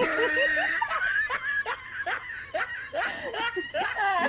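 A person laughing, a run of short falling peals about three a second.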